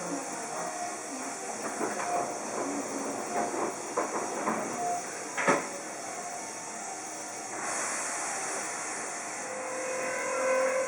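Electric commuter train at a station: one sharp metallic clank about halfway, then a steady hiss, and near the end a whine made of several steady tones.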